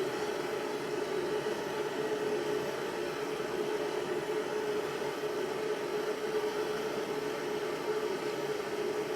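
Gas soldering lamp (blowtorch) burning with a steady hiss and hum, heating a copper-to-lead pipe joint up to soldering temperature.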